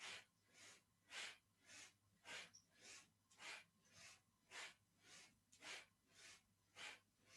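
Quick, rhythmic forced breathing, about two breaths a second with stronger and weaker breaths alternating, paced with a seated yoga twist.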